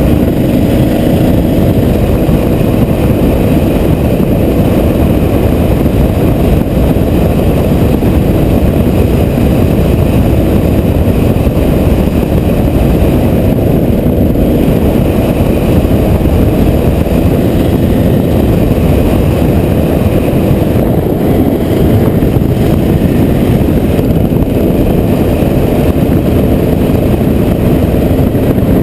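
Strong wind of a desert dust storm buffeting the microphone: a loud, steady low rumble with no pauses.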